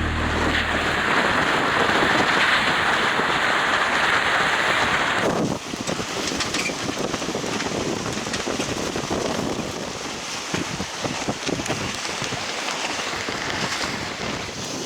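Strong gusting wind buffeting the microphone. The rush is steady at first, then changes abruptly about five seconds in to an uneven, spiky buffeting.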